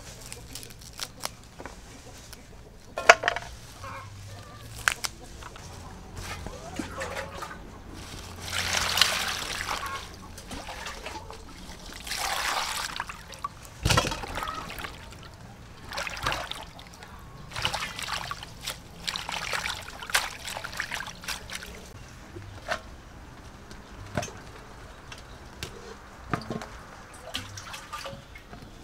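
Hands washing cucumbers and leafy greens in a metal bowl of water: repeated swishing and splashing in bursts of a second or two, with a few sharp clicks in the first few seconds and a single knock about halfway through.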